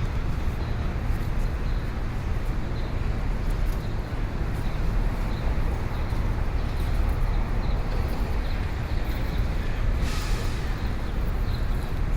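City street ambience: a steady rumble of traffic, with a short hiss about ten seconds in.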